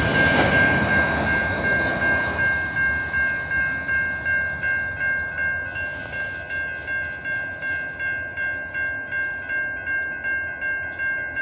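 Level crossing warning bell ringing steadily, about two and a half strokes a second, while the rumble of a slow freight train fades out over the first few seconds.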